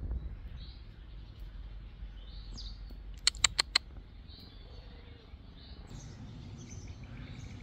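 Faint outdoor birdsong: scattered distant bird chirps, with a quick run of four sharp clicks about three and a half seconds in.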